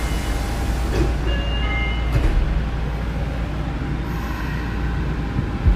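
Inside a stationary Nagoya Municipal Subway 2000-series car: a steady low hum from the loud air conditioning. A few short high electronic tones sound a little over a second in, and a knock comes about two seconds in.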